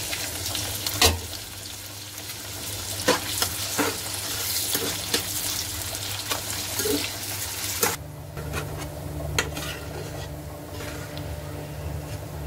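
Sliced onions sizzling in hot oil in a kadhai, with spatula clinks against the pan and a sharp clink about a second in. About eight seconds in the sizzle cuts off abruptly, leaving a fainter hiss, a low hum and a few clicks.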